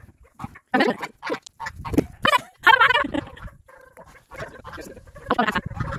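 Domestic geese honking: a handful of short calls, the longest about two and a half seconds in, with some low thumps mixed in.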